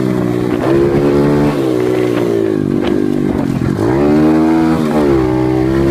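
Dirt bike engine under way, revving up and down with the throttle. The pitch drops sharply about three and a half seconds in, then climbs again.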